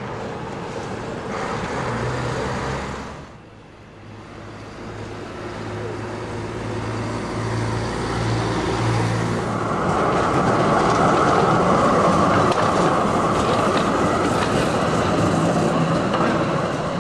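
Street traffic: an articulated diesel bus drives past with a low engine hum, then a GT6 tram rolls by on street track, a steady rolling rumble of steel wheels on rail that builds up about ten seconds in and is the loudest part.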